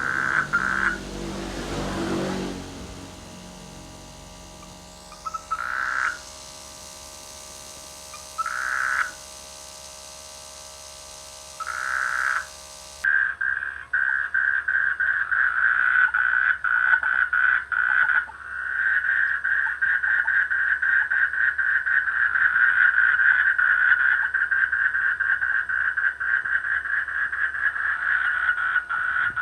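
Frogs croaking in a rainy-season mating chorus. Short pulsed bouts come every few seconds, then about halfway through the croaking becomes nearly continuous and rapid, with one brief pause.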